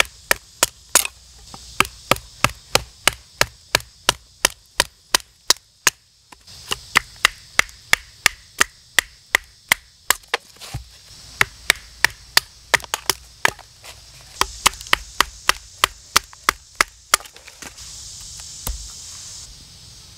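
Batoning: a wooden baton striking the spine of a fixed-blade bushcraft knife over and over, about two blows a second, driving the blade down through an upright log to split it for firewood. The blows pause briefly about six seconds in and stop a few seconds before the end.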